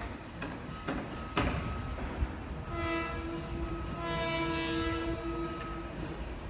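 Multi-tone horn of an approaching Long Island Rail Road M9 test train sounding twice: a short blast about three seconds in, then a longer blast of nearly two seconds, as part of horn testing.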